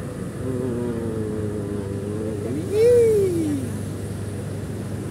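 Motorcycle engine running steadily while riding. A drawn-out, voice-like call rises and then falls in pitch about three seconds in, and it is the loudest sound.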